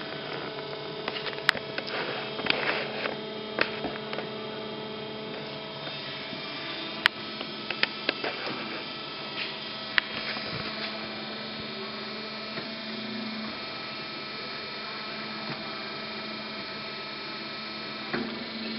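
Meba Eco-line 325 mm metal-cutting bandsaw running with a steady hum of several constant tones. Sharp clicks and knocks come in the first half.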